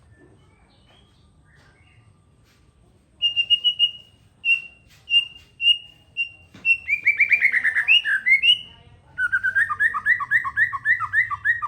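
Songbird singing: after a few faint calls, a run of short repeated notes starts about three seconds in, then a fast series of falling notes, and from about nine seconds a rapid two-note phrase repeated many times.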